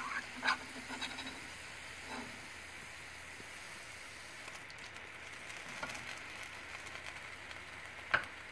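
Faint, steady sizzle of oil deep-frying gulab jamun dough balls, with a few light utensil clicks.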